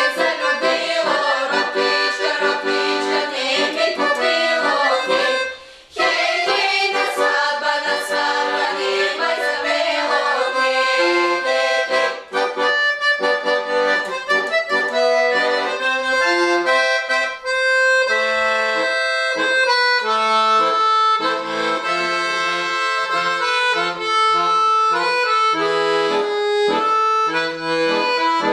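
Accordion music, a melody of many quick notes over sustained chords, with a brief break about six seconds in.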